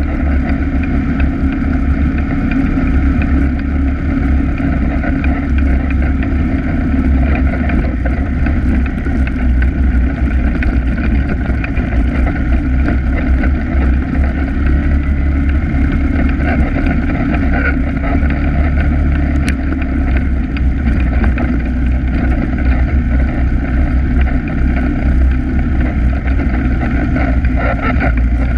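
ATV engine running steadily while riding along a dirt trail, heard up close from the machine the camera is mounted on.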